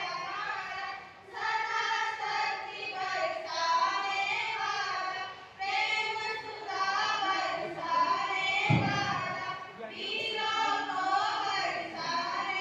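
A group of schoolgirls singing together into a hand-held microphone, in long phrases with short breaks between them. A brief low thump comes about two-thirds of the way through.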